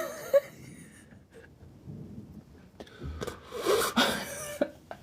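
A person breathing, with soft mouth noises and a louder breath about three and a half seconds in.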